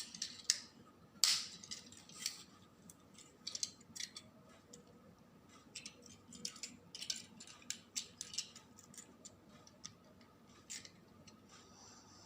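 Plastic parts of a Tobot transforming toy robot clicking and snapping as it is folded by hand from one form to the other: a string of irregular sharp clicks, the loudest about a second in.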